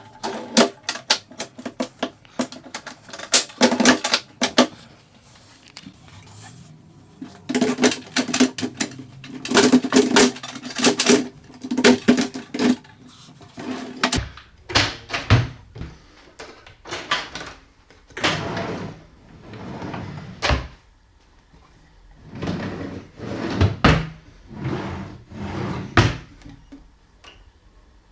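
Wooden cabinet doors and drawer hardware being handled: rapid clicking over a steady low hum in the first half, then separate knocks and thumps as the doors are shut.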